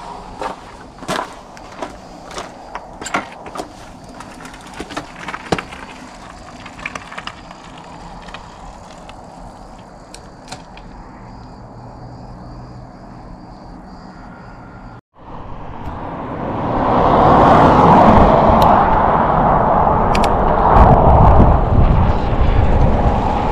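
A folding bicycle rolling along a road, with scattered clicks and rattles. About fifteen seconds in the sound cuts out briefly, then a much louder steady rushing noise takes over.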